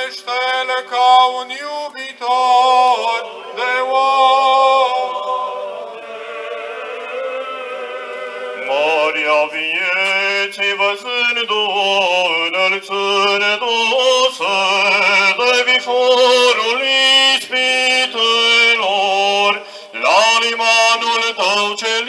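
Men's choir of Orthodox priests and cantors chanting a funeral hymn a cappella, in long held, slowly moving notes, the sound growing fuller and louder about nine seconds in.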